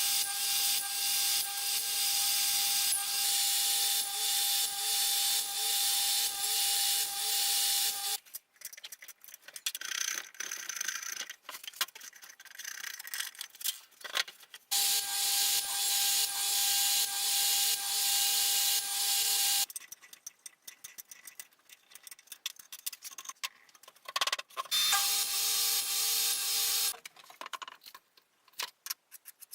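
An electric power tool's motor runs at a steady pitch with a dense, hissing cutting noise, in three bursts of about eight, five and two seconds. Scattered clicks and knocks come between the bursts.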